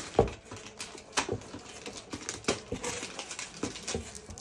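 Irregular light clicks and taps, about a dozen, from small parts and tools being handled during a laptop repair; the sharpest comes just after the start.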